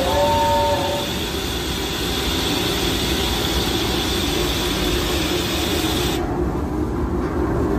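Hogwarts Express theme-park train, built to look like a steam locomotive, pulling out of the station with a steady rumble of the moving train. A brief tone sounds in the first second.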